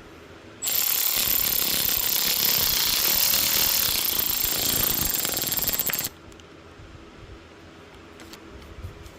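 Electric ratchet running for about five seconds, with a fast rattle and a high whine, driving down the bolt of a valve spring compressor to compress an engine valve spring; it starts suddenly and cuts off.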